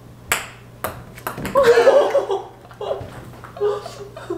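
A ping pong ball bouncing on a hardwood floor: three sharp ringing ticks in the first second and a half, coming closer together as the bounces shorten. Then comes a person's laughter, the loudest sound, near the middle, with softer laughing sounds near the end.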